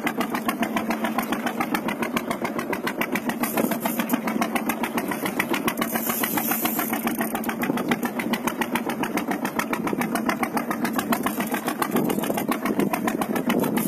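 Engine on a fishing boat running steadily with a fast, even pulse. A short hiss of splashing water comes about six seconds in, as a hooked fish churns near the surface.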